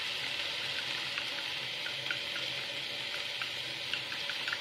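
Chopsticks stirring a cornstarch-and-water slurry in a ceramic bowl, ticking lightly against the bowl about three times a second, over a steady sizzle of minced chicken frying in the pan.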